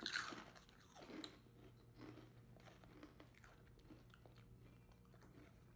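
Faint chewing of milk-soaked Cheetos, a little louder right at the start.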